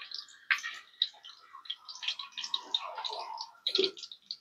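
Chilli-masala-coated tuna pieces frying in hot oil in a kadai, with a busy, irregular sizzle and crackle. A brief thump near the end.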